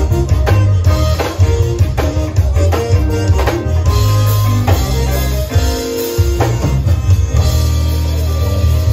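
A live zydeco band playing instrumentally: button accordion, electric guitar and drum kit over a heavy bass line with a steady dance beat.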